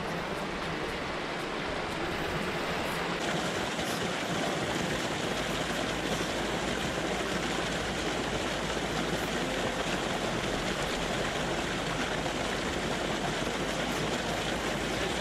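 Hot spring water pouring over rocks into a small rock pool, a steady splashing rush.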